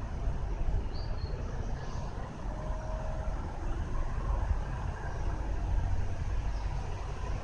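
Steady low outdoor rumble, with two faint high chirps about a second in.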